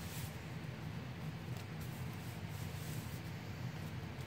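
Hands rubbing and pressing a freshly glued paper pocket flat onto a cardstock page, a faint soft paper rubbing with a few light rustles, over a steady low hum.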